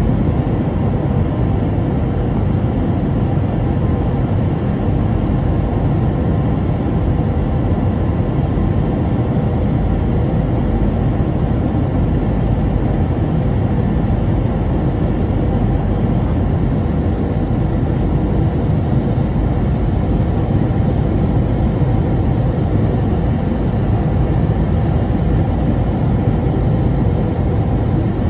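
Steady cabin noise inside an Airbus A321-231 airliner: the IAE V2500 engines and rushing air make an even low rumble, with a faint steady hum on top.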